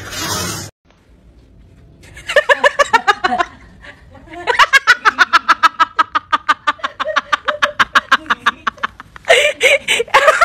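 A person laughing in a rapid, high cackle: a short burst about two seconds in, then a long unbroken run of quick 'ha-ha' pulses from about four and a half seconds in, slowly falling in pitch.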